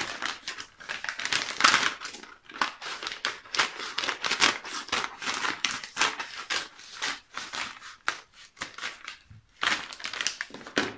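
A paper mailing envelope crinkling and rustling as it is handled and cut open with scissors: dense, irregular crackling, with a brief lull about eight seconds in.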